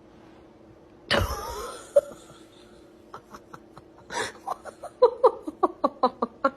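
A sudden loud crash or thump about a second in, then a person laughing in short, rapid bursts from about four seconds on.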